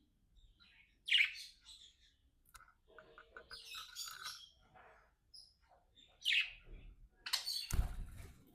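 Pet budgerigars chirping and chattering in short, sharp calls, the loudest about a second in and near six seconds. Near the end a broad rustling thump with a low rumble comes in over the chirps.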